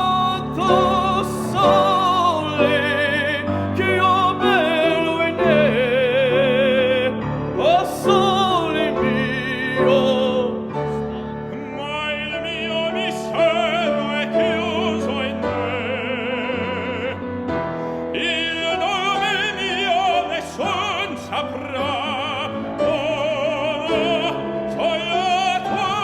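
Operatic singing with a wide vibrato, held and gliding notes, over a piano accompaniment.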